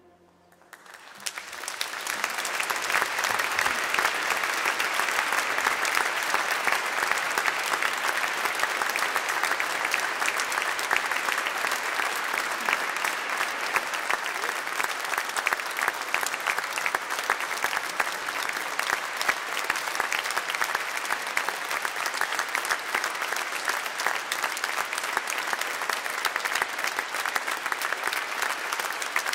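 Audience applauding at the end of the performance. The clapping starts about a second in, as the last note dies away, fills out within a couple of seconds and then holds steady.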